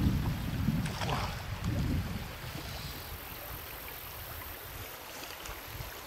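Wind buffeting the microphone in uneven low gusts for about the first two seconds, then steady wind and flowing stream water.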